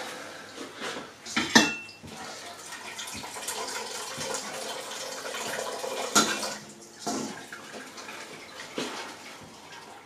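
Wort running and dripping from a lifted brew-in-a-bag grain bag into a stainless steel brew pot, a steady splashing trickle. A couple of sharp metal clanks come from the stainless colander being handled and set on the pot's rim, one about a second and a half in and a louder one about six seconds in.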